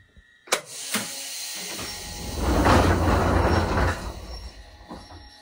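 Passenger doors of a Choshi Electric Railway 2000-series train being opened in a door test: a sharp click and then a second one, a hiss of air, then the door panels rumble as they slide open, loudest for a second or two before fading.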